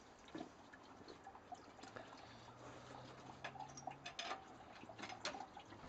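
Faint, irregular ticks and small drips from a loaded apple press under bottle-jack pressure: freshly pressed apple juice dripping from the cheese.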